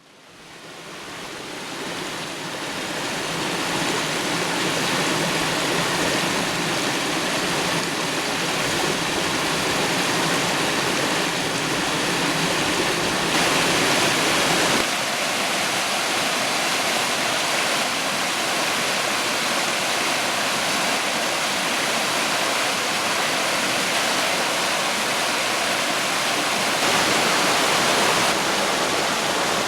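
Iron Creek, a mountain stream, rushing over rocks in a steady, even rush of water that fades in over the first few seconds. Its tone shifts a little about halfway through and again near the end.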